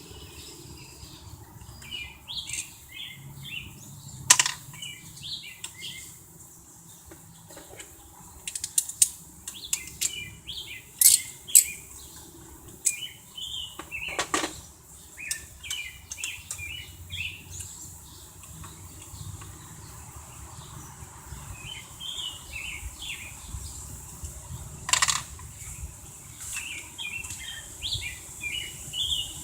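Small birds chirping in quick repeated bursts throughout, with a handful of sharp metallic clicks and clinks from hand tools on the engine.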